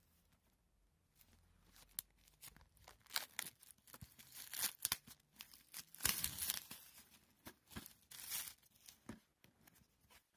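Clear plastic shrink-wrap being torn and peeled off a DVD box set, in irregular crackling and crinkling bursts that start about a second in and thin out near the end.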